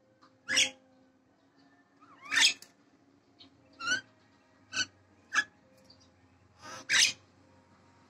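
Nias hill myna calling vigorously: six loud, short calls a second or two apart, sharp shrieks, several with a rising whistle.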